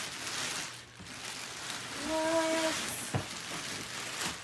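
Gift wrapping paper being torn and crumpled off a large box, a rustling, crackling noise. A short held voice sound comes a little after two seconds in, and a single sharp click about a second later.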